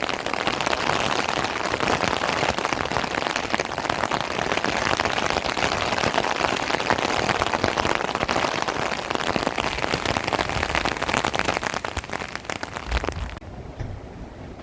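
Heavy rain falling hard on a surface, a loud, dense hiss thick with the patter of individual drops. Near the end it drops off sharply to a quieter, lighter rain.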